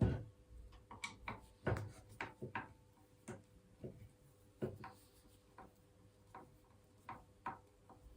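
Scattered light knocks and clicks, irregularly spaced, as of things being handled, over a faint steady hum.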